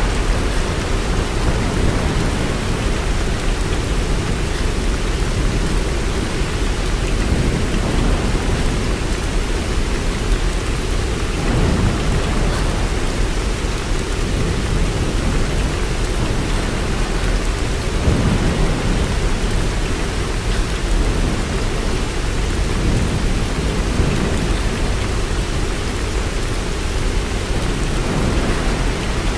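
Steady heavy rain, with low rolling thunder rumbling underneath that swells and fades several times.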